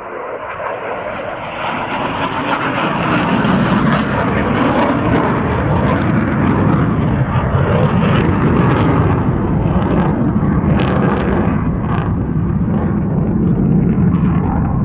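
F-16 fighter jet's engine noise as it flies past overhead, a loud rushing roar that builds over the first few seconds and then holds steady.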